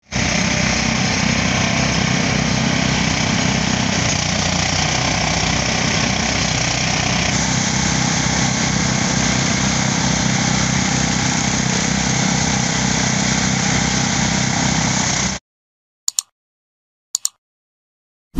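Engine-driven rice thresher running steadily under load as rice sheaves are fed into its drum, a loud continuous machine noise with a low pulsing. It cuts off suddenly about 15 seconds in, and two short blips follow.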